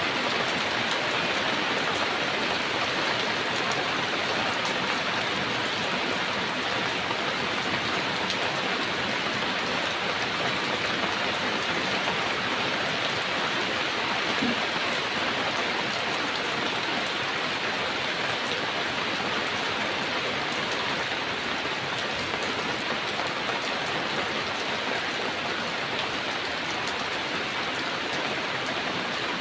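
Heavy rain falling steadily, a dense even hiss with faint drop ticks.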